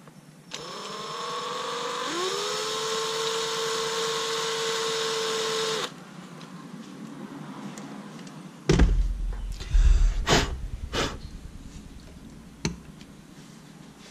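Cordless drill spinning a small number 43 bit into a carburetor passage, enlarging the hole to tap size: a steady motor whine for about five seconds that dips in pitch about two seconds in, then stops suddenly. A few seconds later come several loud thumps and sharp knocks.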